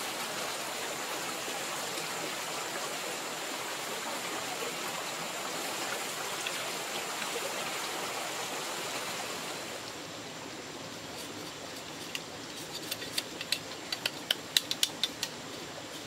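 A rocky stream rushing over stones for about the first ten seconds. Then, against a quieter background, a quick run of sharp clicks and knocks as a blade cuts into a bamboo stick.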